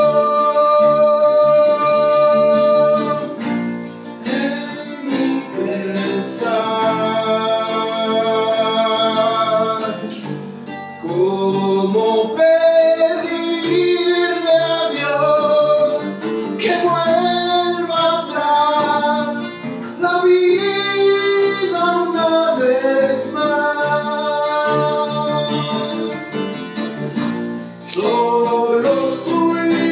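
Acoustic band playing a song: a man sings in Spanish, in phrases with short breaks, over a plucked nylon-string classical guitar and an acoustic bass guitar.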